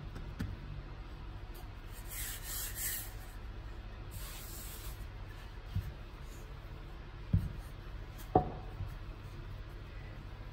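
Wooden rolling pin working shortbread dough on a granite counter: two soft swishes as it rolls across the dough, then a few knocks of the pin against the stone, the loudest two about seven and eight seconds in.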